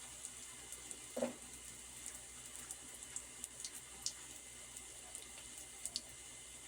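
Coconut dumplings frying in hot oil in a pot: a steady sizzle with scattered sharp pops and crackles. A brief low sound about a second in.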